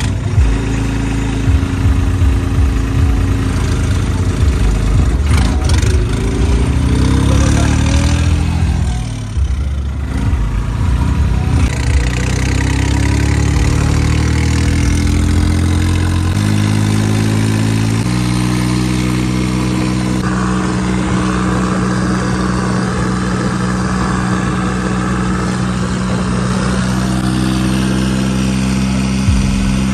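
New Holland 3600 tractor's diesel engine, fitted with a Holset turbocharger, running under way. Its note dips and climbs back about ten seconds in, steps up in pitch a few seconds later, then holds steady.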